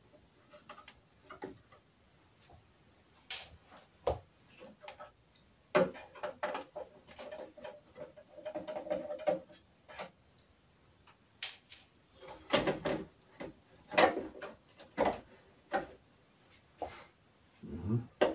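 Irregular clicks, knocks and scraping of plastic and sheet-metal parts as an iMac G3 is taken apart by hand, with the busiest clatter around the middle and again near the end.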